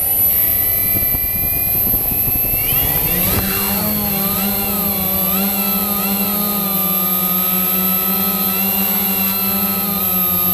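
Quanum Nova quadcopter's brushless motors and propellers whining. The pitch climbs steeply about three seconds in, then wavers up and down as the throttle changes, under a steady high-pitched whine.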